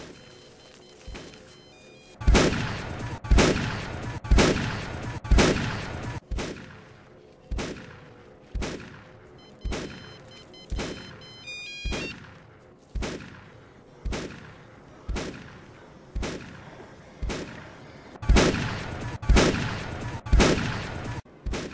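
Shotgun blasts repeated at an even pace of about one per second, each with a short fading echo. They are looped by editing, loudest over the first few and the last few shots.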